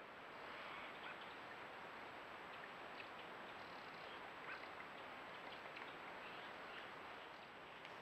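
Faint steady rushing of flowing creek water, with a few faint, short bird chirps scattered through it.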